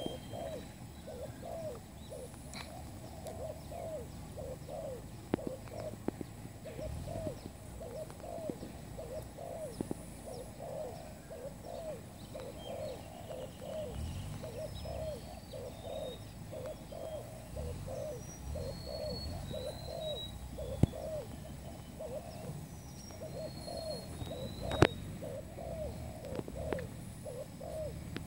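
Spotted doves cooing: a steady, unbroken run of repeated low coos. Small birds chirp faintly higher up, and two sharp clicks stand out, about two-thirds of the way in and again near the end.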